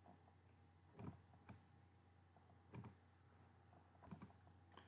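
A few faint, scattered clicks of a computer mouse against near silence.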